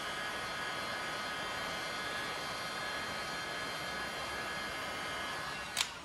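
Handheld electric heat gun running steadily, a hiss of blown air with a faint whine, heating the plastic-welded tabs of a shift-knob collar to soften them. It stops with a click near the end.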